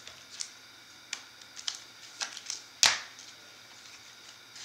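Bowman Chrome baseball cards being flipped through and set down by hand: light clicks and short slides of stiff card stock, with one sharp snap just before the three-second mark.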